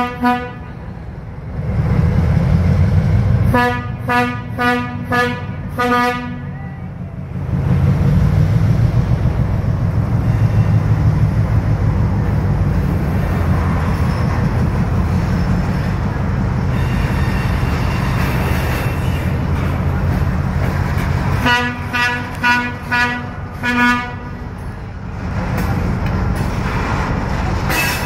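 Diesel switcher locomotive sounding its horn in two rounds of about five quick short toots, a few seconds in and again later on, over the low steady rumble of its engine as it moves tank cars.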